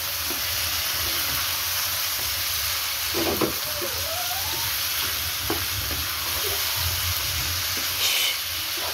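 Chicken pieces with onions, tomatoes and ground spices sizzling steadily in oil in a non-stick pan while being stirred with a wooden spoon, at the bhuna (fry-down) stage of a chicken pulao masala. A few louder scrapes of the spoon against the pan stand out.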